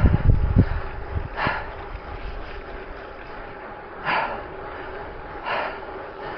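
A cyclist breathing hard while riding, a short sharp breath every one and a half to two and a half seconds, with wind rumbling on the microphone in the first second.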